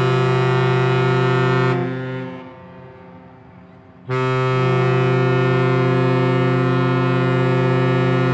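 Passenger ship KM Kelud's horn sounding two long, steady, deep blasts as a departure signal. The first dies away about two seconds in, and the second starts about four seconds in and holds on.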